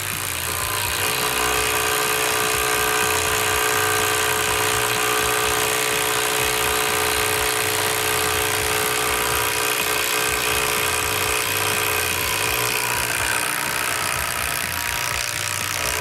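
Kobalt 24V Max brushless cordless impact driver (KID 2024A-03) hammering a long structural lag screw into lumber in one steady, unbroken run.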